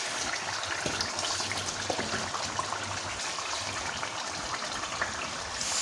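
Dark fish stew simmering in a large aluminium pot, a steady bubbling hiss, with a few faint knocks from a wooden spatula stirring it.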